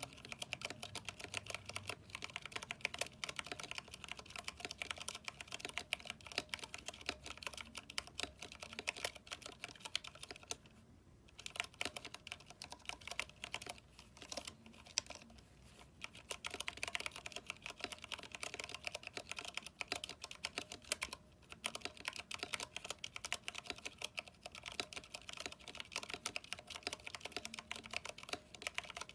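Fast, continuous typing on a Vortex 10th Anniversary Edition mechanical keyboard with Cherry MX Brown switches and PBT keycaps, a dense run of keystroke clicks and clacks broken by brief pauses about 11 and 21 seconds in.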